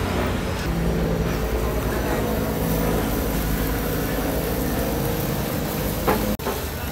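Steady low engine rumble of street traffic under an even hiss, with a brief knock about six seconds in.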